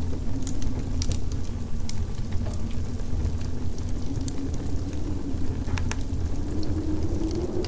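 Winter wind ambience: a steady low rumble with a faint howl that slowly rises and falls, and scattered sharp crackles over it.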